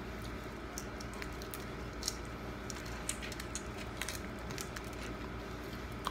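Shell-on shrimp being peeled by hand: scattered small, sharp crackles and clicks of the shells breaking, with wet chewing, over a steady low hum.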